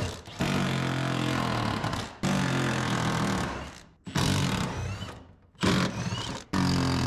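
Cordless impact wrench hammering on factory-Loctited 18 mm seat bolts in a Jeep Wrangler JK, in about five bursts of a second or two each with short pauses between.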